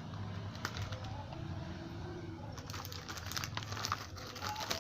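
Delivery packaging crinkling and rustling as it is handled and opened by hand, with scattered crackles that grow busier in the second half.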